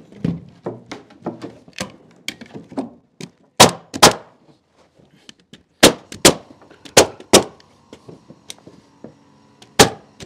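Pneumatic nail gun driving nails through pine planks into the beams: about seven sharp shots, mostly in pairs about half a second apart. Lighter knocks and taps come before the first shot.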